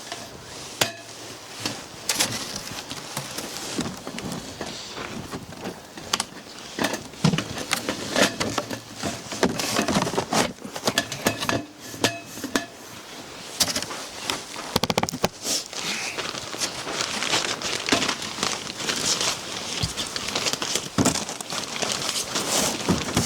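Snow crunching and scraping, broken by frequent irregular knocks and clatters.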